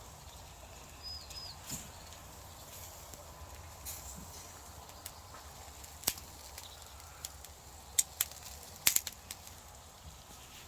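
Log campfire grilling pork, crackling with scattered sharp pops, a cluster of the loudest ones past the middle, over a faint steady low rumble.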